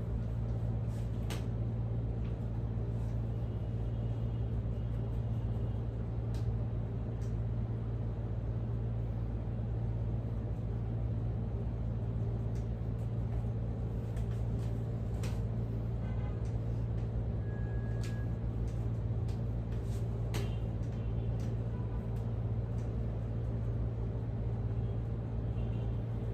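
Steady low machine hum, with a few faint clicks and brief thin high tones scattered through it.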